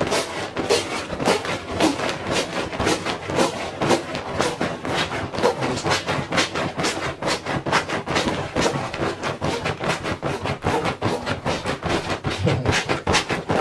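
Ripstop nylon inflatable camping mat being pumped up by pressing repeatedly on its built-in pump: a rapid, unbroken run of fabric crinkles and swishes as the mat fills with air.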